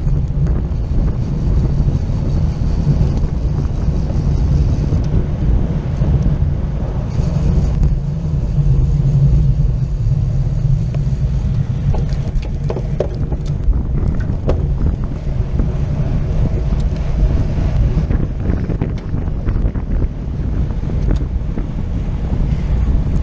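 Wind buffeting the microphone of a camera on a racing bicycle moving at speed in a pack, a steady, loud, low rushing. A few short clicks come about halfway through.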